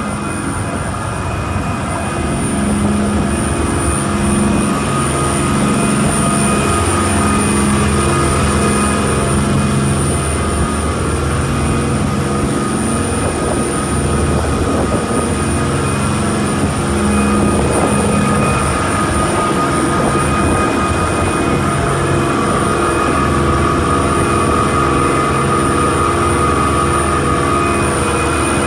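A charter fishing boat's engine running steadily at cruising speed, with the rush of water from the hull and wake.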